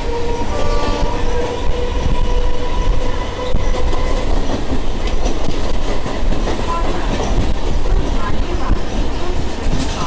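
An empty rake of railway passenger coaches passing close by, a loud steady rumble of wheels on rails. A faint held tone fades out over the first few seconds.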